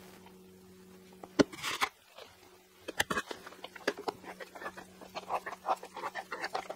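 Spatula stirring gypsum plaster in a flexible mixing bowl: a single knock about a second and a half in, then from about three seconds a quick run of short scrapes and clicks as the thick mix is worked.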